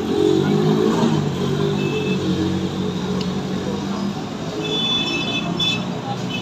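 Busy street ambience dominated by road traffic, with a vehicle engine running steadily. A high-pitched tone comes in about two thirds of the way through and lasts to the end.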